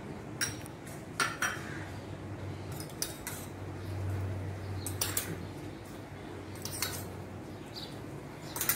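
Metal spoon clinking against a small steel cup and the aluminium pot as food colour is spooned over biryani rice: a few sharp clinks a second or two apart, over a low steady hum.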